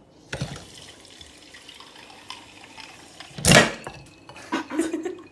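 Kitchen mixer tap running, water pouring into a bowl of dry penne pasta held over a stainless-steel sink. There is a short, louder burst of noise about three and a half seconds in.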